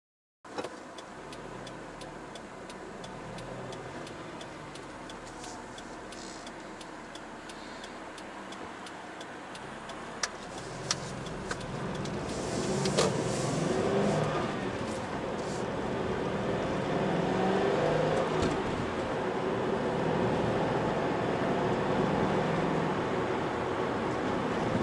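Car driving: steady engine and road noise that cuts in suddenly just after the start and grows louder about halfway through, with a few sharp clicks around the middle.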